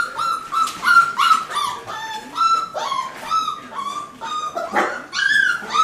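Young sheepadoodle puppies whimpering and squeaking: a quick run of short, high-pitched cries, two or three a second, some of them falling in pitch.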